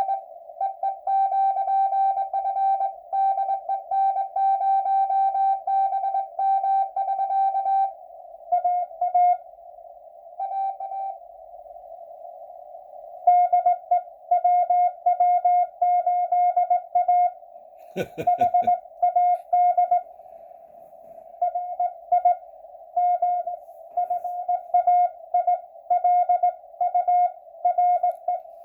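Morse code (CW) on the 80-metre amateur band received on a ham radio: a steady pitched tone keyed on and off in dits and dahs, with hiss from the narrow band filling the gaps. Sending stops for a few seconds about a third of the way in, with only a few faint short signals, then resumes. A brief crackling burst of static comes about two-thirds of the way through.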